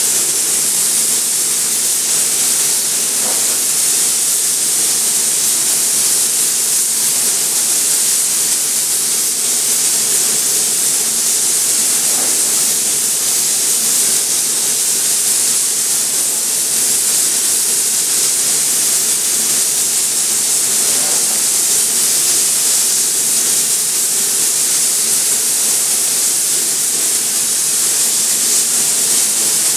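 Compressed-air spray gun spraying thick polyester primer through a large tip: a loud, steady hiss of air and atomised material.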